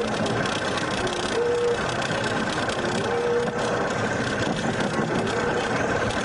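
Road and engine noise of a car driving at highway speed, heard from inside the cabin, with a recurring tone that steps up from a lower to a higher pitch every second or two.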